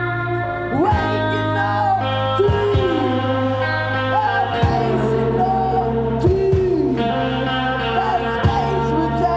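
Live indie rock band playing: a steady bass line under long held notes that slide up and down in pitch, with a few sharp drum hits.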